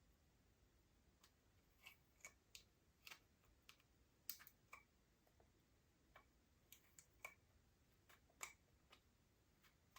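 Slime being worked by hand: faint, irregular small clicks and pops, about one or two a second.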